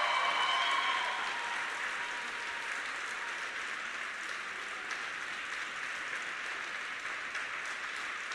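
Audience applauding, a steady patter of clapping after the program ends. The last note of the skating music fades out about a second in.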